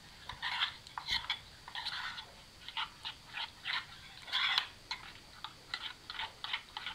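Metal spoon stirring and scraping a thick paste of yogurt and ground spices around a bowl: a run of short wet scraping strokes, about three a second.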